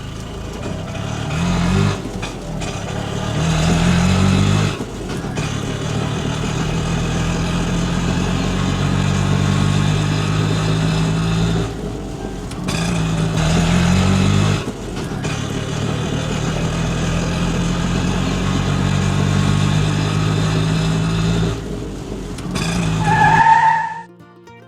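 Engine running steadily, revving up briefly three times. A short higher tone, like a horn, sounds near the end.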